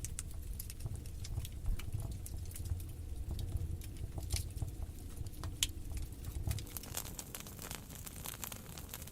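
Wood fire crackling in a fireplace: irregular sharp pops and ticks over a low steady rumble.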